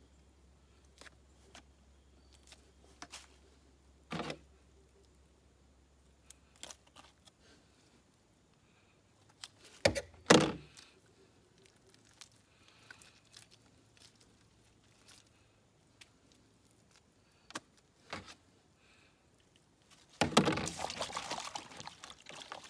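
Scattered clicks, knocks and handling noises of a squirrel being cut up and skinned by hand with a knife, the loudest a pair of sharp knocks about ten seconds in. Near the end, about two seconds of splashing as the meat goes into a bowl of water.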